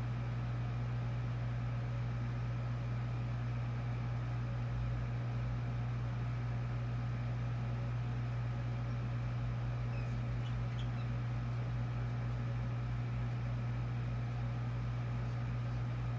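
A steady low mechanical hum, like a running household appliance or fan, with a few faint brief budgie chirps about ten seconds in.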